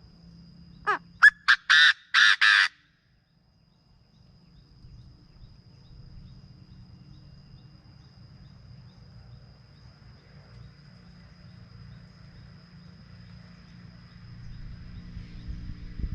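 Chinese francolin giving its loud call once, about a second in: a falling first note followed by a quick run of short harsh notes, the last two longer. After it, only faint low background noise.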